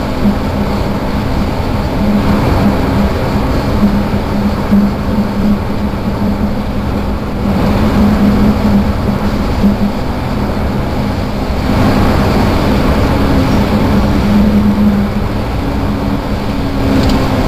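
Volkswagen R32's 3.2-litre VR6 engine driving hard at speed, a steady drone under loud road and tyre noise, heard from inside the car at the rear.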